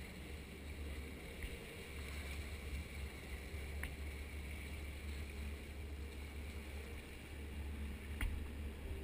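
Steady low wind rumble over the parasailer's camera with the tow boat's engine running beneath it, while the parasail is winched down to the boat. Two faint clicks, about four and eight seconds in.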